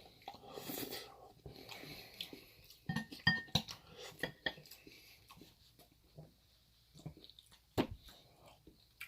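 Close-up eating sounds: chewing a mouthful of chickpea curry and naan, with small mouth clicks. A few sharp clicks and a short clink of a utensil against a dish come about three seconds in, and a single knock near the end.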